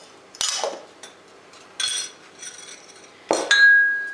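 A metal spoon and a small glass bowl clinking on the table, three sharp knocks; the last clink, about three and a half seconds in, leaves the glass ringing with a clear tone that fades away.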